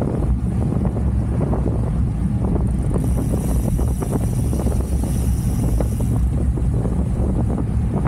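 Wind buffeting the microphone of a camera riding along at cycling speed: a steady low rumble, with a higher hiss joining for about three seconds in the middle.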